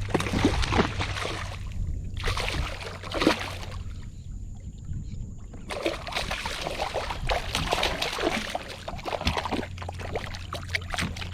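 Water splashing and sloshing close by a kayak in three spells, the last and longest running through most of the second half.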